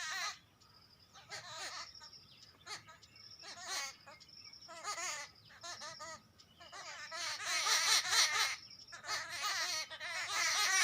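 A group of birds giving wavering alarm calls together in repeated bursts, mobbing a squirrel they have spotted; the calling grows louder and more continuous over the last few seconds.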